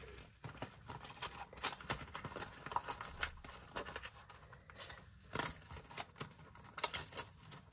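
Faint, irregular scratching and small clicks of a scratch-off panel being scraped, with paper handled on a table.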